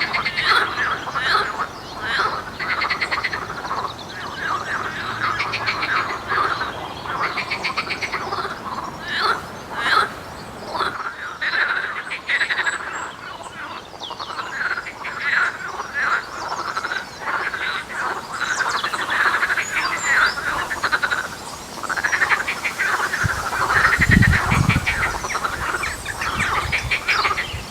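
A chorus of many frogs calling at once: overlapping rapid, rattling croaks that go on without a break. A low rumble comes in near the end.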